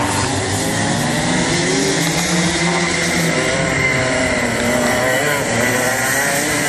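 Several racing go-kart engines running hard as a group of karts passes, their overlapping engine notes rising and falling with the throttle.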